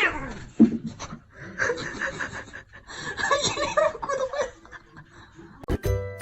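A person laughing in several bursts. A bright, jingly music tune starts near the end.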